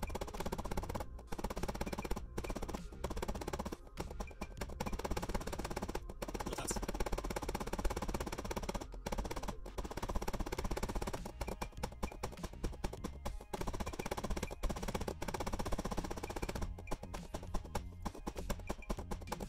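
Rapid, steady tapping of a light wooden-handled hammer on a paintless dent repair knockdown tool, knocking down high spots along a car door's hemmed edge; the footage is sped up three times, so the taps come in quick succession. Background music plays underneath.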